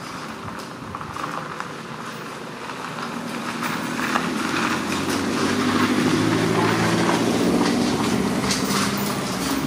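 A vehicle engine hum that swells over the first half and then holds steady, over a hiss, with a few light clicks.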